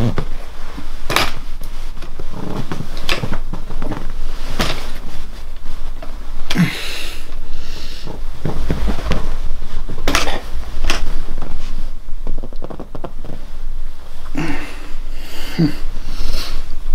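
Scattered rustles and soft knocks of a person shifting his body and legs on a bed and its bedding, over a steady low hum.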